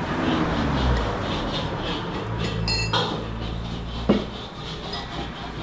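Metal kitchenware clattering: scattered clinks, a ringing metallic clank near the middle and a sharp knock about four seconds in, over a low steady hum.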